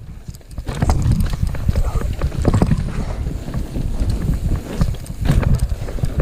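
Mountain bike descending a rough trail at speed: wind buffeting the microphone, tyres running over dirt, and the bike knocking and rattling over bumps, louder from about a second in.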